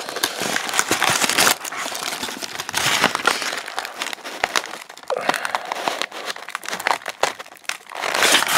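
Clear plastic packaging crinkling and crackling irregularly as hands pull an ornament out of its bag and styrofoam packing.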